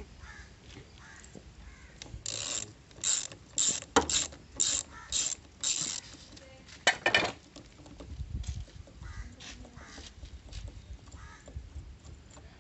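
Socket ratchet wrench clicking in a run of short bursts, about two a second, then one more about a second later, as the nut holding a motorcycle's rotor oil filter is undone.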